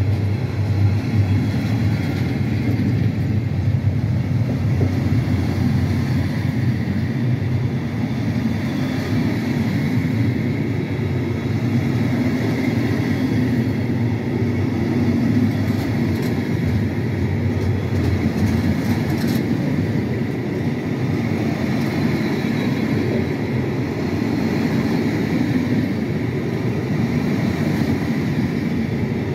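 A freight train of loaded timber wagons rolling past close by: steady noise of wagon wheels running on the rails, with no let-up.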